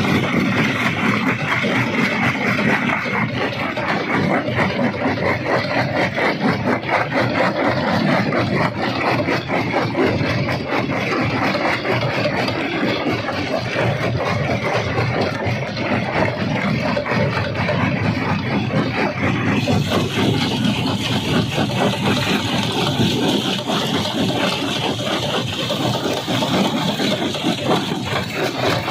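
Jaw crusher running, stone clattering and cracking between the jaws over a steady heavy machine drone, with dense rattling throughout.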